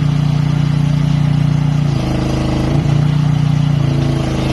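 Mini excavator engine running at a steady speed, a loud even hum. Its pitch dips and recovers briefly about two seconds in and again a little later.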